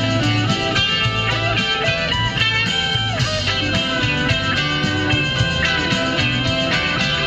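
Background music: a rock track with guitar over a steady repeating bass line.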